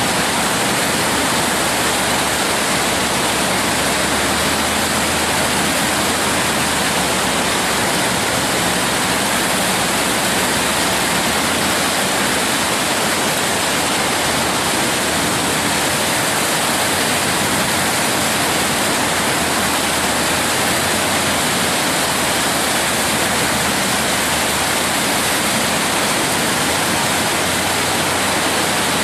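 Steady, unbroken rush of a large whitewater rapid, its waves running high at a flow of about 25,000 cfs.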